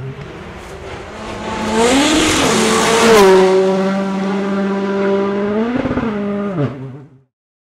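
Volkswagen Polo WRC rally car's 1.6-litre turbocharged four-cylinder engine at high revs on a gravel stage. The engine note climbs, then holds steady at full throttle, with a hiss of gravel and tyres loudest about three seconds in. Near the end it rises briefly, drops, and cuts off suddenly.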